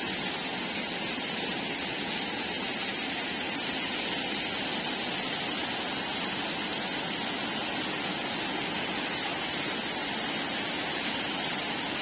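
Rain-swollen stream rushing and splashing over boulders: a steady, unbroken wash of water noise.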